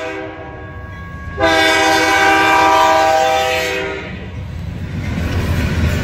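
Diesel locomotive air horn sounding a chord of several tones as the train reaches the grade crossing: a crossing warning. It sounds first at a moderate level, then a louder blast from about a second and a half in until it stops about four seconds in. The low rumble of the locomotive's engine and rolling wheels then builds.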